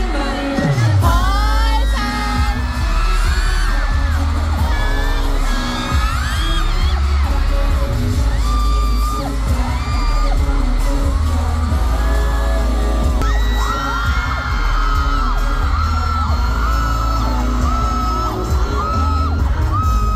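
Live K-pop concert sound from the audience: a pop track with a heavy bass beat and singing, with fans whooping and screaming. A low sweep falls in pitch about half a second in.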